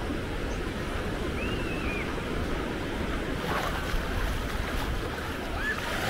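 Caspian Sea surf breaking and washing up a sandy beach in a steady rush, with wind rumbling on the microphone. The wash swells about halfway through.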